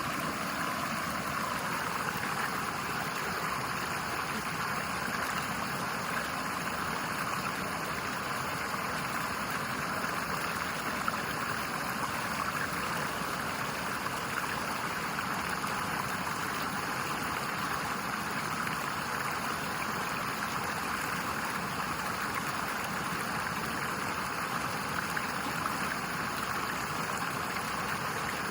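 Water flowing steadily, as in a running stream: an even, unbroken rushing sound with no pauses.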